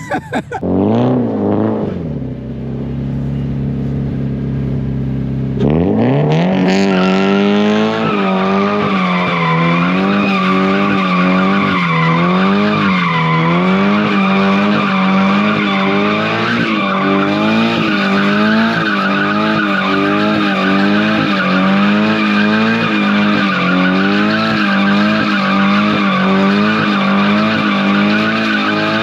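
Car spinning its tyres, with tyres squealing: for the first few seconds the engine holds a steadier, lower pitch, then about six seconds in the revs jump up and stay high, the pitch rising and falling about once a second as the throttle is worked.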